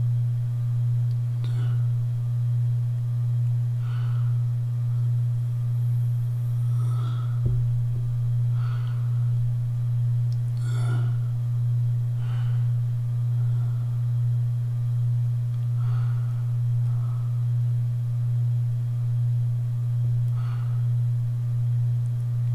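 A steady low hum, one deep tone that swells and fades gently about every two seconds, with a few faint clicks from handling small parts.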